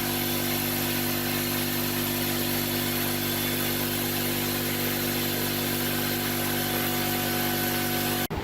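A motor or engine running at a steady speed, a constant-pitched drone that holds even and then cuts off abruptly near the end.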